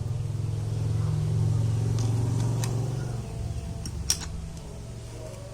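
A low engine hum that swells over the first second or two and fades away after about three seconds, with a few sharp metallic clicks.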